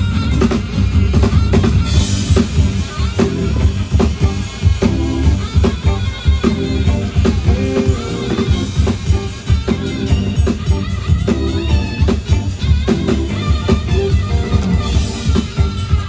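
Band music with a drum kit keeping a steady beat over bass and pitched instruments.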